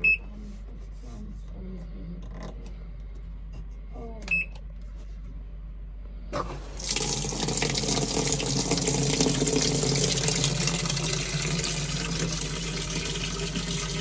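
Sphere top-loading washing machine: two short beeps from its control panel as buttons are pressed, then about six seconds in a steady hiss of water rushing into the drum as it fills at the start of a wash cycle.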